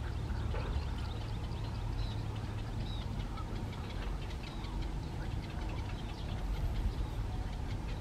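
Birds calling with many short, quick chirps and clicks over a steady low rumble.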